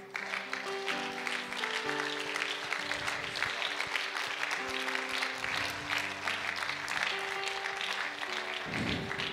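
Soft background church music of held, slowly changing chords, with the congregation clapping and applauding over it.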